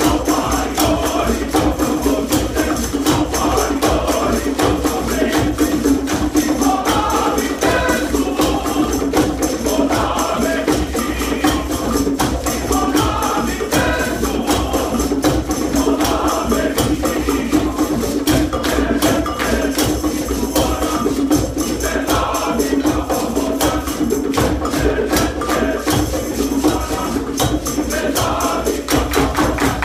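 A men's choir singing an upbeat, chant-like number over a held low drone, with the singers clapping a steady, fast beat.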